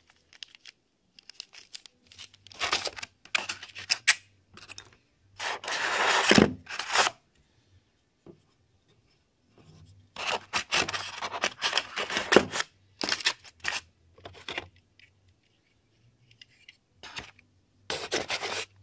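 Handling noise from parts being pulled out of a polystyrene foam packing insert and plastic wrapping: several separate bursts of rubbing, scraping and rustling with short quiet gaps between them.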